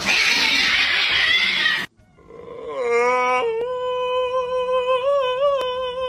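A loud harsh hiss for about two seconds, cut off suddenly. After a short gap a tabby cat gives one long yowl that rises at first, then holds a steady note with a slight wobble for about three seconds.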